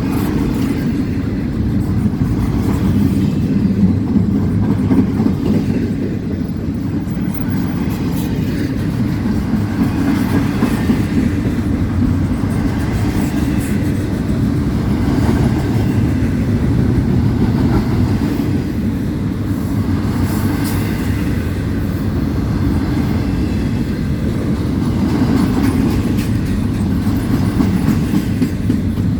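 A freight train rolling past, its cars rumbling steadily on the rails with a repeating clickety-clack of wheels over the rail joints.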